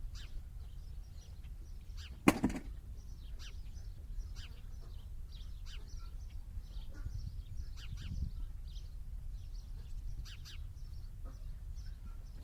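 Small birds chirping again and again over a low rumble, with one sharp knock about two seconds in.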